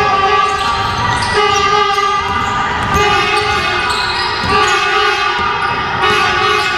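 Basketball game in a gym: a ball dribbled on the wooden floor, under a run of long, horn-like pitched tones that start one after another about every second and a half.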